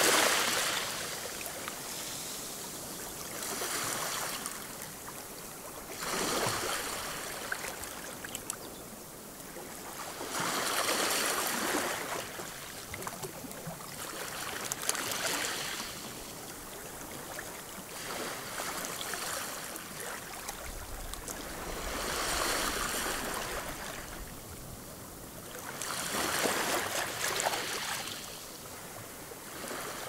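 Gentle waves lapping a rocky shore. About every four seconds a wash of water surges in with a crackling fizz over the stones, then eases off. The first surge, at the very start, is the loudest.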